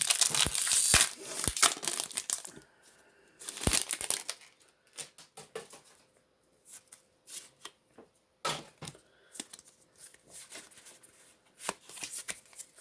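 Foil booster pack wrapper crinkling loudly as it is torn open, then quieter rustles and light taps of trading cards being handled.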